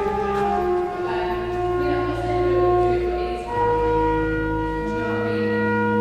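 Pipe organ playing slow, sustained chords, the notes shifting every second or so over deep held bass notes.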